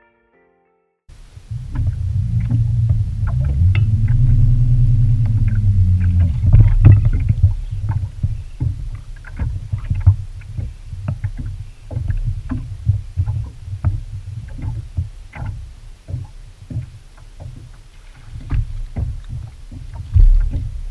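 Water knocking irregularly against the hull of a small motorboat, over a heavy low rumble that starts about a second in.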